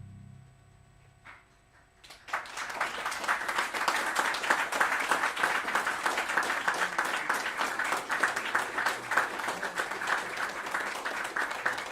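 The last low synth tones die away, and after a brief hush an audience starts applauding about two seconds in, with steady clapping to the end.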